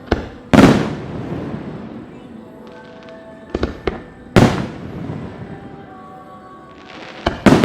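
Aerial fireworks shells bursting in a series of sharp bangs, each trailing off in a rolling echo. The biggest booms come about half a second in and about four and a half seconds in, with smaller cracks between and a quick double bang near the end.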